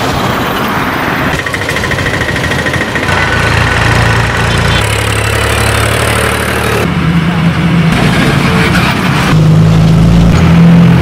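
Road vehicle engines running in foggy-road traffic, with a steady low engine hum. The sound changes abruptly several times, as between separate clips.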